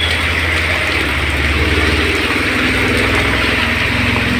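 A vehicle engine idling steadily close by, over the even hiss of heavy rain.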